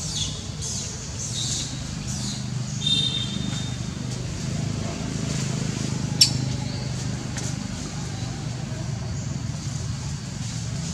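A young macaque gives short, high-pitched squeaks and squeals while being wrestled and pinned, with a sharp click about six seconds in. A steady low hum runs underneath.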